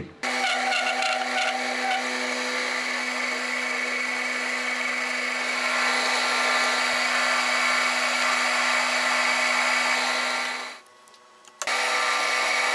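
Metal lathe running with a steady motor hum while it cuts a spinning brass rod, with a hiss of cutting over the hum. The sound stops for about a second near the end and then starts again.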